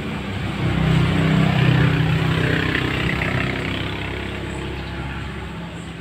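Engine of a passing motor vehicle: a low hum that swells about a second in and fades away over the next few seconds, over steady background noise.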